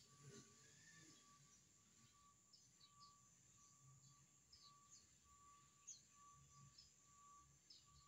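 Near silence outdoors, with faint scattered bird chirps and a faint on-off tone.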